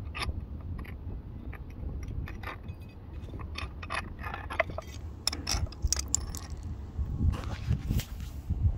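Steel bench vise working a small drive pin out of an RC truck's output shaft into a socket: irregular small metallic clicks and scrapes as the pin, socket and jaws shift, over a low rumble. The clicks come thicker and louder after about five seconds.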